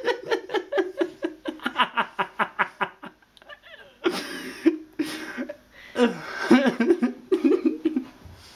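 People laughing: a long run of quick, rhythmic laughs for the first few seconds, then a few breathier bursts of laughter.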